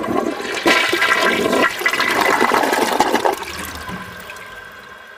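A rush of water that starts suddenly, stays loud for about three seconds, then slowly fades away.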